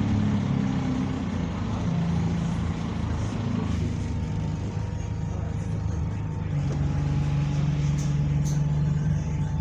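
A bus engine running steadily while the bus is under way, heard from inside. Its note shifts as it goes, with a stronger note from about two-thirds of the way through and two brief clicks near the end. The engine has been modified and sounds like an older Euro 3 bus.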